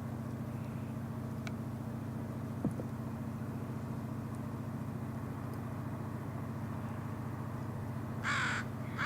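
A crow caws once, a harsh call about eight seconds in, with a second call beginning just at the end, over a steady low hum.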